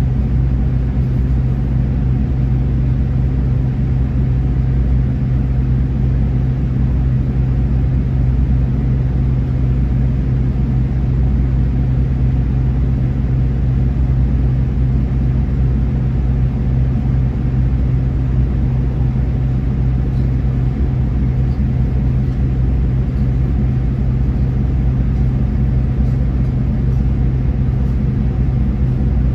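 Solaris Urbino 18 III articulated bus's engine idling steadily at a standstill, a constant low hum.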